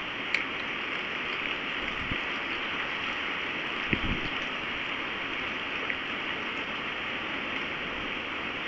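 Steady hiss of a storm, with scattered sharp taps and knocks, the most prominent one right at the start and a low knock about four seconds in.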